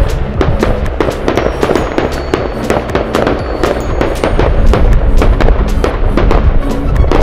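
Fireworks display bursting overhead, with dense rapid bangs and crackling from crackle-effect shells, over background music.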